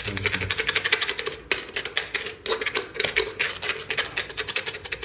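A metal hand tool scraping and chipping old caulking out of a cast-iron sewer pipe socket: a dense, continuous run of quick clicks and scrapes.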